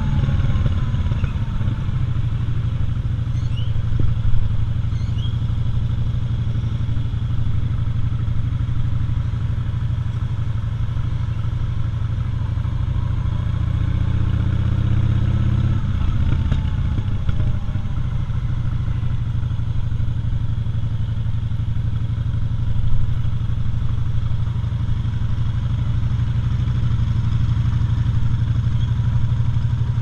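Cruiser motorcycle's engine running at low road speed, a steady low rumble, with the engine note rising briefly about halfway through.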